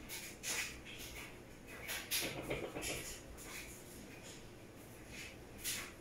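Electrolux top-load washing machine agitating a heavy king-size blanket in deep water: irregular soft swishes and sloshes of water and wet fabric as the agitator works back and forth, quieter for a couple of seconds around the middle.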